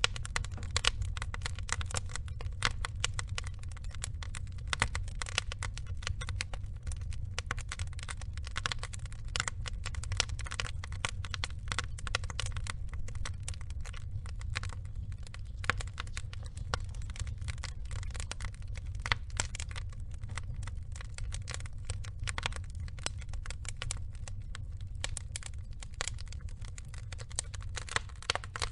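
Wood fire with burning logs crackling: dense, irregular pops and snaps over a steady low rumble of the flames.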